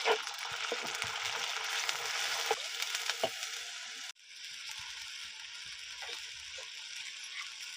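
Hot oil sizzling steadily in a black iron kadhai as masala fries in it, with a few light spoon knocks against the pan in the first few seconds. The sizzle drops out for an instant about four seconds in, then carries on.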